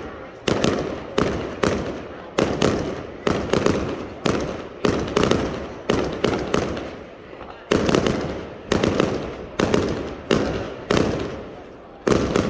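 Aerial fireworks going off in a rapid string of sharp bangs, about two a second, each echoing away, with a brief pause a little past the middle.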